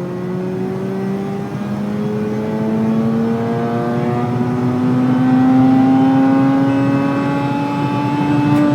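Mazda RX-8's two-rotor Renesis rotary engine pulling hard at wide-open throttle in third gear, its pitch rising steadily as the revs climb. No pops or break-up are heard, and the owner notices no misfire on this pull.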